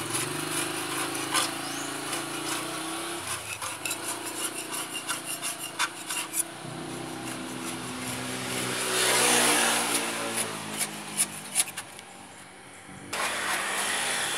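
A brush scrubbing paint remover over a motorcycle frame: scratchy, rapid strokes with many small clicks, louder for a moment near the middle, while a small engine runs in the background.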